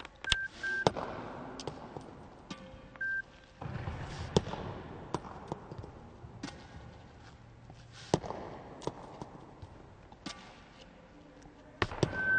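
Badminton racket repeatedly striking shuttlecocks in sharp taps, mixed with shuttles dropping onto the court and a few short squeaks of court shoes on the floor, echoing in a sports hall.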